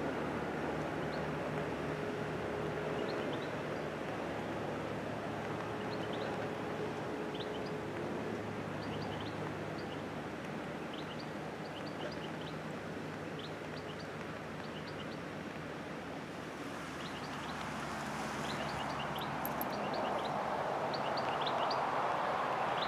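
Outdoor field ambience: many short, high bird chirps over a steady low engine hum, with a rushing noise that grows louder over the last several seconds, like a vehicle approaching.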